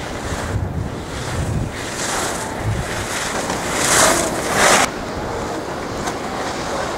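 Wind buffeting the microphone: a steady rushing noise with low gusty rumbles, and two louder hissing rushes about four and four and a half seconds in.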